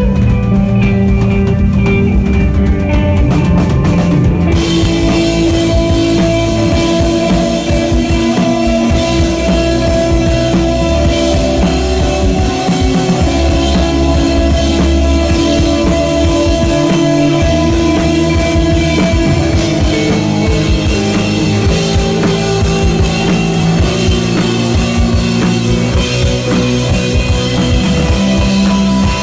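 A live rock band playing loud instrumental desert rock: drum kit, electric guitar and bass, with long held low notes. The cymbals come in about four seconds in.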